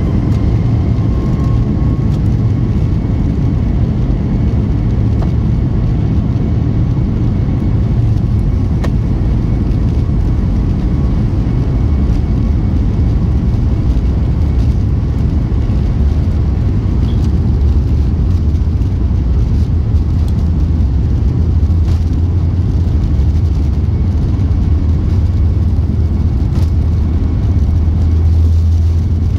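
Airliner cabin noise heard at a window seat: a loud, steady low rumble of the jet engines as the plane rolls along the taxiway, with no sudden changes.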